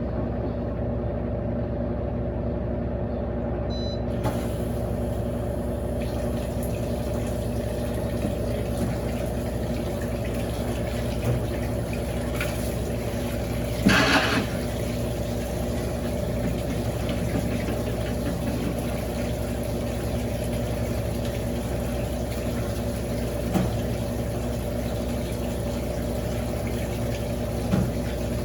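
Electrolux LAC16 top-loading washing machine running steadily, its motor (a 1/4 hp WEG motor taken from an LT13B, in place of the original 1/3 hp Welling) giving an even hum. About halfway through there is one brief louder noisy burst, and a few faint clicks.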